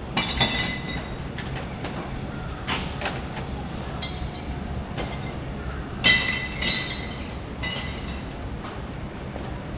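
City street ambience: a steady low rumble of traffic, broken twice by short, high ringing clinks, once right at the start and louder about six seconds in.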